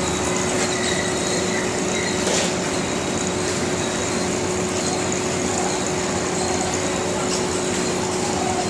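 Steady din of compost-fertilizer mixing and granulating machinery running, with a constant hum and a few light knocks.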